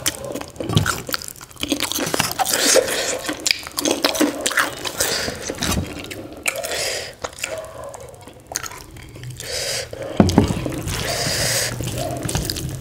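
Close-miked eating sounds: fingers squishing and mixing rice with curry on a steel plate, with chewing and short wet clicks. A low hum comes in near the end.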